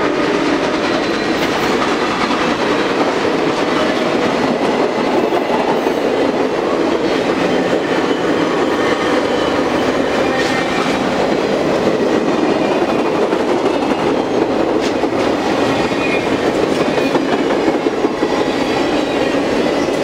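Passenger cars of a passenger train rolling past at speed close by: a steady, loud rush and clatter of steel wheels on the rails.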